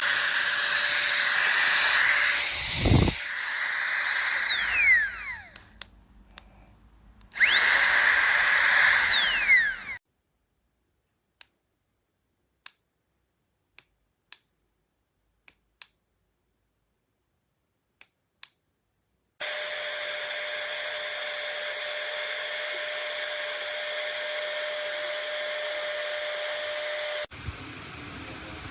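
Flextail Tiny Pump 2 mini electric air pump running with a high-pitched whine. It winds down with a falling pitch about five seconds in, starts again with a rising pitch a couple of seconds later and stops at about ten seconds. A few faint clicks follow, then the pump runs again more quietly for about eight seconds and cuts off suddenly.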